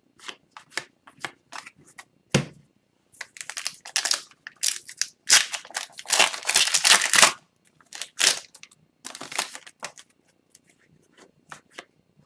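Wrapper of a hockey card pack being torn open and crinkled, with the cards inside handled; scattered crackles and clicks build to a dense stretch of crinkling in the middle.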